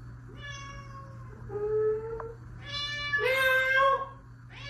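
Domestic cat meowing four times in a row, most of the meows long and drawn out, the second and last the loudest.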